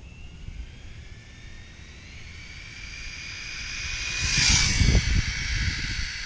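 ARRMA Infraction V2 RC car's brushless motor and drivetrain whining, rising in pitch as it speeds up. The whine grows louder to a rush of noise as the car passes closest, about four and a half seconds in, then eases off. It is running on a low 4S battery at roughly 39 mph.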